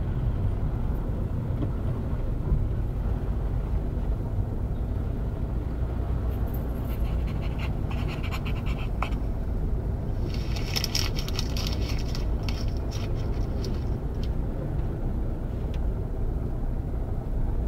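Steady low rumble of a car driving slowly in city traffic, heard from inside the cabin. Bursts of scratchy rustling come in about halfway through.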